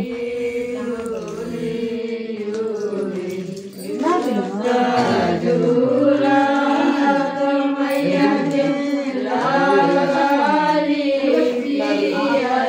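Group of women singing a devotional folk song to the mother goddess (Devi geet) together, in long held notes.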